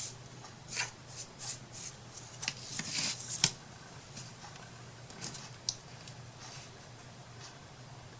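Handling noises from craft work: scattered rustles, taps and clicks, busiest in the first four seconds and thinning out after, over a faint steady low hum.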